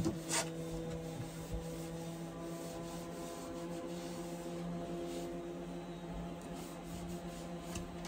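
A cloth dampened with alcohol solution rubbing back and forth over the wooden trim of a yacht cabin, wiping off the film that winter damp leaves on the wood. A steady low hum runs underneath, and there is a short click near the start.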